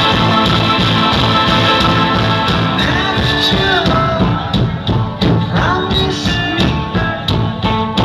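Live rock band playing, with drums, guitar and a singing voice. The dense wall of sound thins after about four seconds, leaving separate drum hits and the voice more exposed.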